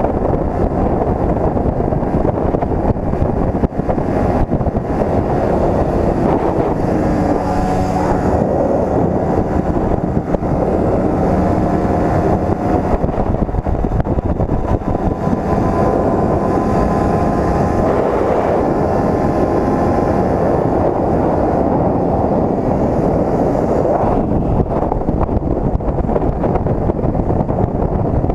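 Motorcycle riding at speed: heavy wind noise on the microphone with the engine's note underneath, its pitch shifting now and then as the throttle changes.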